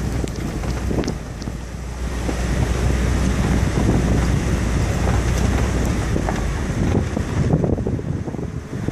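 Car driving slowly over a rough, rutted dirt-and-gravel road: engine and road noise with uneven bumps and jolts. A low hum drops away about three quarters of the way through.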